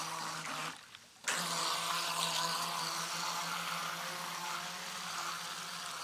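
Remote-control boat's motor running with a steady hum over rushing, spraying water as the boat drives across the lake. The motor cuts out for about half a second, about a second in, then runs on steadily.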